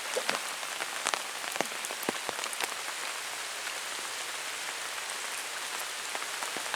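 Heavy rain falling, a steady hiss with sharp ticks of single drops striking close by, most frequent in the first few seconds.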